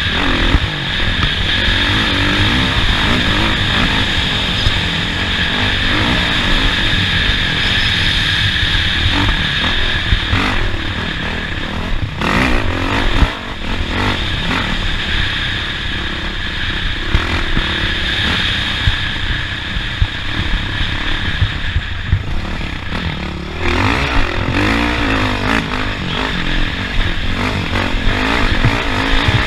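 Off-road race vehicle's engine running hard over a dirt track, the revs rising and falling, with knocks and clatter from the rough ground.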